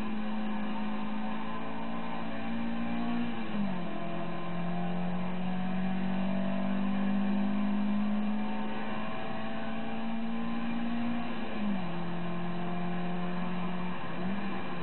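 Toyota Celica 2TG 1.6-litre twin-cam four-cylinder engine running hard in a race-prepared Toyota Starlet, heard from the cabin. Its note drops sharply about four seconds in and again near twelve seconds, climbing steadily in between as the car accelerates.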